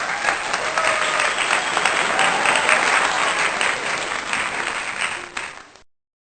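Crowd applauding, the dense clapping of many hands, thinning out and stopping abruptly about five and a half seconds in.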